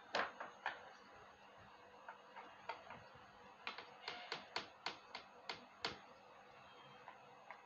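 Light sharp clicks and taps, a couple at first and then a run of about eight at roughly two a second a few seconds in, from hand work on the toaster's wiring.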